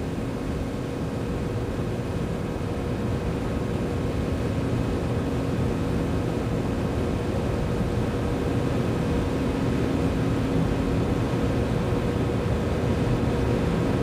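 Steady hum and hiss with a few faint held tones and no distinct strokes or knocks: the background noise of the recording.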